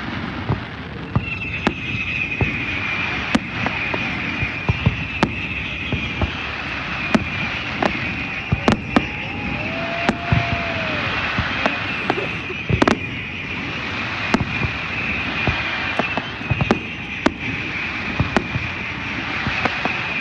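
Fireworks going off in an irregular string of sharp bangs over a steady noisy background. A steady high tone is held through most of it.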